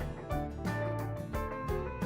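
Background music with a steady beat: drums with held bass and plucked guitar notes.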